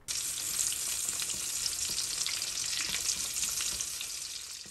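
Egg-battered stuffed poblano chile frying in a skillet of hot oil: a steady sizzle full of fine crackles, dying down a little near the end.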